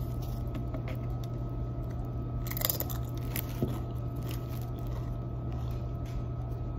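A chip being bitten and chewed, with a few scattered crunches over a steady low hum.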